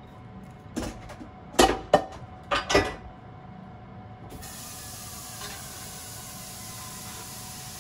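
Chopsticks clicking against a ceramic plate and the crisp, candied dried baby sardines (gomame) as the fish are arranged: about five short clicks in the first three seconds. A little past halfway, a steady hiss sets in.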